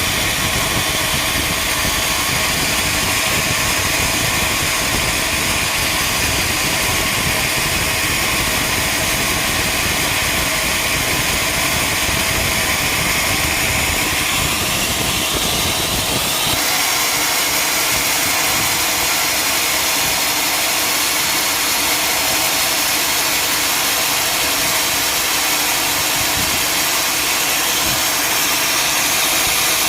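Sawmill machinery running steadily and loudly with a continuous mechanical hum. About halfway through, the low rumble drops away while the higher hum carries on.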